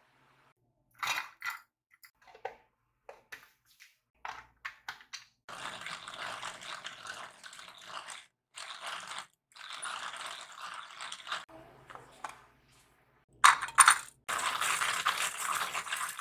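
Kitchen food-preparation sounds: a series of sharp clicks and knocks, then several stretches of rough scraping or rustling lasting two to three seconds each, with a loud double knock just before the last one.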